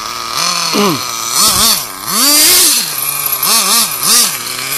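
Radio-controlled car's motor whining, revved in about five short throttle bursts, its pitch rising and falling with each.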